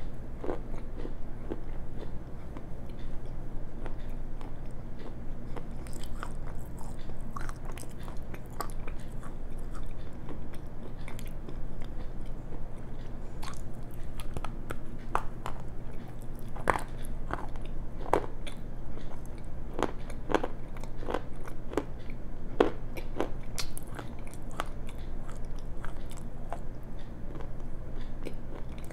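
A person biting and chewing pieces of black shale that were soaked and then sun-dried: sharp crunches and snaps at irregular intervals, close to a lapel microphone. A steady low hum runs underneath.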